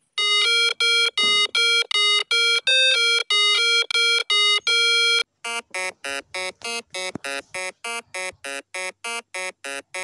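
Electronic beeping tune like a ringtone: a run of even beeps about three a second, mostly on one note with a few higher ones. About halfway through it switches to shorter, quicker beeps, about four a second.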